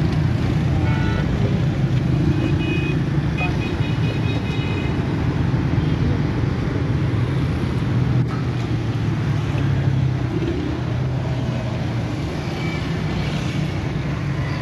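Roadside traffic, with a motor vehicle engine running steadily close by. A short run of high beeping tones comes about two to five seconds in.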